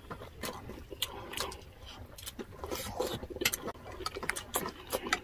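Close-miked eating sounds: wet chewing and mouth clicks, with a spoon dipping into a glass bowl of pork broth.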